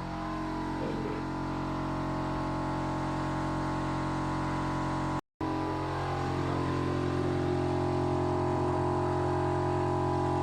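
A vehicle engine running at a steady, unchanging speed, with a brief break about five seconds in.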